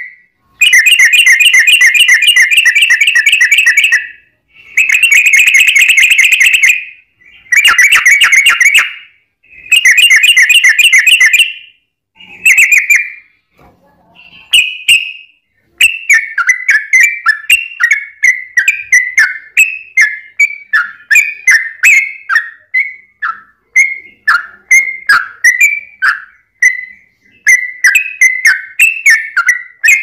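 Yellow-vented bulbul (trucukan) singing loudly: several long, rapid rolling trills of a few seconds each with short breaks between them, then from about halfway a run of separate short downward-slurred notes, roughly two a second.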